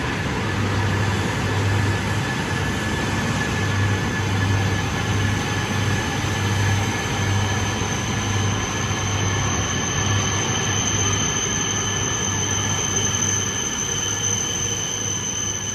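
Train moving at a station platform: steady running noise over a low hum that pulses irregularly. A high-pitched steady whine comes in about halfway through.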